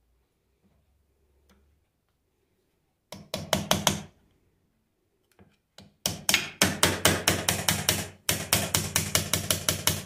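Rapid hammer taps on the metal of an alternator, about six strikes a second, a short burst about three seconds in and then a longer run from about six seconds in with a brief pause: shock-tapping the part to free a seized screw.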